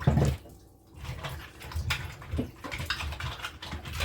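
A knock right at the start, then irregular splashing and clatter of cow foot pieces being washed by hand in water.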